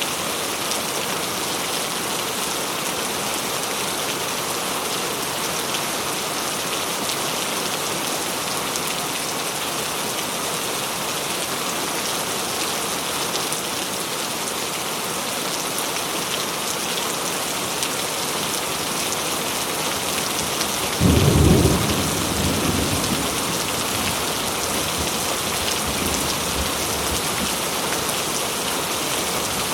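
Steady heavy rain falling, with a sudden clap of thunder about two-thirds of the way through that rumbles on for a few seconds.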